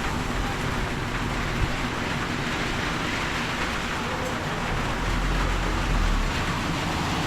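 Road traffic on a wet highway: a steady hiss of tyres on wet pavement with engine rumble, swelling as a vehicle passes about five seconds in.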